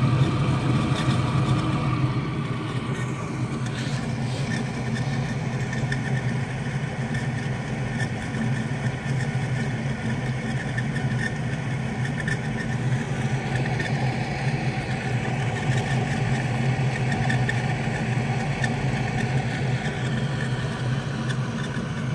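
Trane 4YCC gas pack's combustion blower (draft inducer) running steadily with no burner ignition. The unit fails to fire, probably because water in the blower housing stops it pulling enough vacuum to close the pressure switch.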